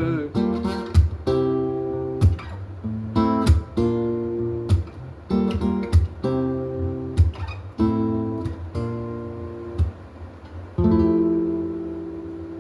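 Acoustic guitar strummed through the song's closing bars, ending on a final chord struck near the end and left ringing.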